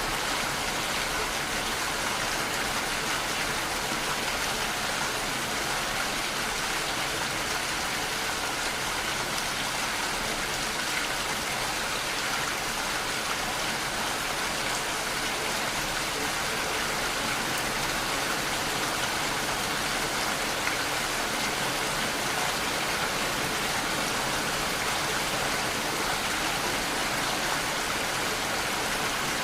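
Steady, even rain-like hiss with no separate drops or events: the masking backing sound of a subliminal recording.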